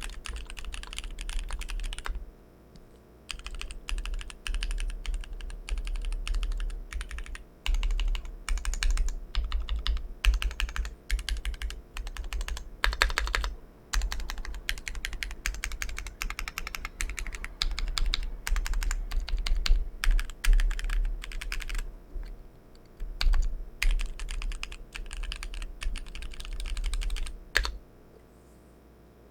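Typing on a custom mechanical keyboard: an ai03 Polaris with a brass plate, SP-Star Polaris White switches and GMK Oblivion keycaps. Fast runs of keystrokes are broken by short pauses, and the typing stops near the end.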